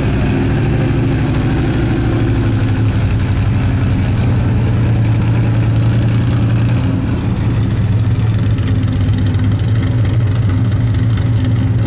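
A pulling pickup truck's engine running steadily at low revs as the truck rolls slowly past, a loud, low drone that dips briefly about seven seconds in.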